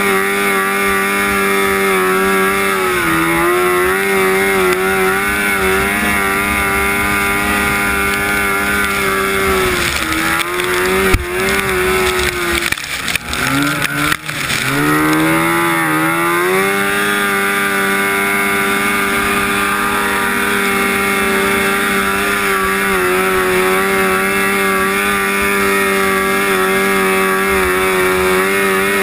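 1974 Rupp Nitro 340cc two-stroke snowmobile engine running at a steady high pitch at racing speed. It eases off in the middle, its pitch dipping and climbing back, with a couple of sharp knocks, then holds steady again.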